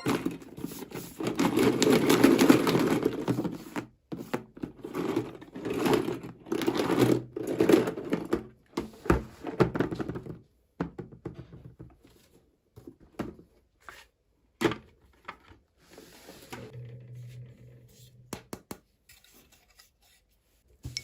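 Toy packaging being opened and handled: irregular rustling, tearing and crinkling with scattered clicks and taps, busiest in the first half.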